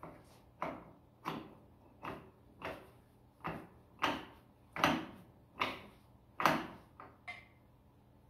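Hand tool worked on a tractor's diesel engine in repeated strokes: about eleven short sounds, roughly one every two-thirds of a second, each starting sharply and fading, loudest in the middle of the run.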